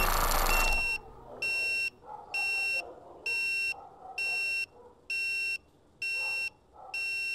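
Drone motors and propellers whir, then cut off under a second in. From then on a high electronic beep repeats about once a second, each beep about half a second long: typical of a drone's warning buzzer after a crash.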